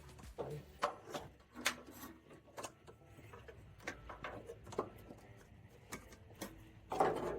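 Irregular light clicks and knocks of hand tools, a bolt and a battery cable being handled during battery-cable removal, with a louder clatter about seven seconds in.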